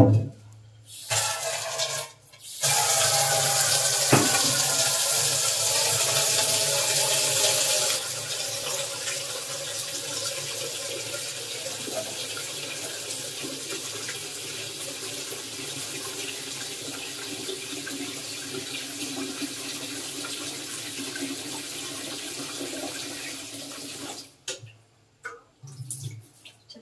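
Kitchen tap running into a stainless steel sink for about twenty seconds, loudest for the first few seconds, then steadier and quieter until it stops near the end. A sharp clank at the start, and a few short knocks of pots after the water stops.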